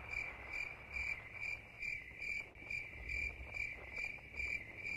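Insect song, a steady, fairly faint high chirring that pulses evenly a little over twice a second, over a faint low rumble.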